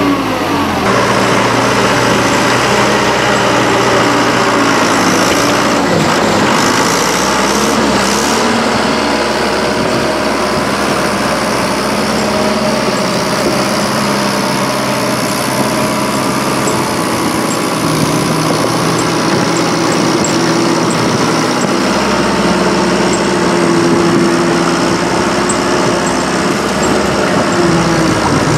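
A motor vehicle's engine running steadily and loudly throughout.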